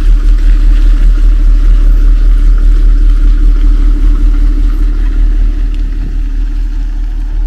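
Diesel engine of an Iveco Eurocargo 12-tonne truck running under load as it climbs a muddy track, a steady low rumble that fades a little as the truck pulls away. The tyres are gripping on the mud.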